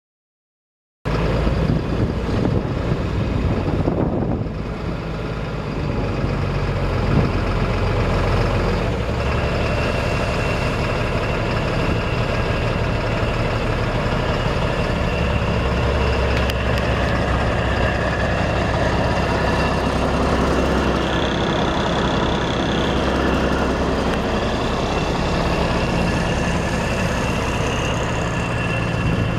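Caterpillar 3116 six-cylinder diesel engine of a 1990 GMC TopKick dump truck running steadily. It comes in suddenly about a second in, and its low note shifts a few seconds later.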